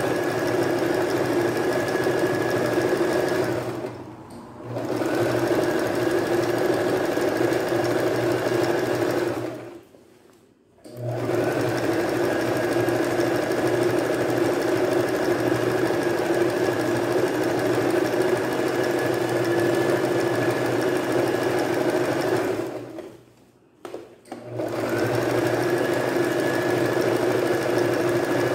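Singer household electric sewing machine running steadily while zigzag stitching along a fabric edge. It eases off about four seconds in and stops briefly about ten and twenty-three seconds in before running on.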